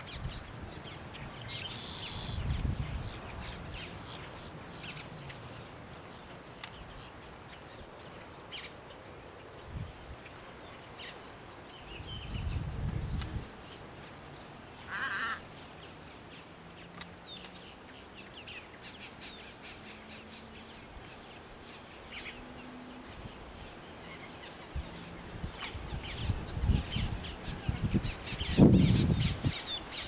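Wind buffeting an unshielded camera microphone in gusts, strongest near the end, over a marsh with scattered bird chirps. About halfway through a bird gives one short, harsh, caw-like call, and a faint steady high tone runs underneath.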